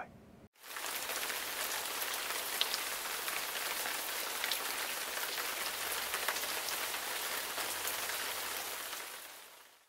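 Rain falling steadily, with a few sharper drop taps standing out, starting about half a second in and fading out near the end.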